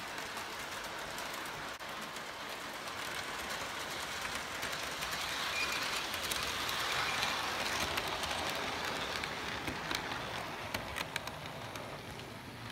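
Model train rolling past on curved sectional track: a steady rumbling whir of the wheels on the rails, with many small clicks as the wheels cross the rail joints. It grows louder toward the middle as the cars pass closest.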